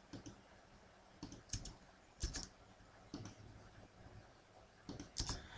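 Faint computer mouse clicks and keyboard keystrokes, scattered single and paired clicks, made while entering the LINE command and picking points in AutoCAD.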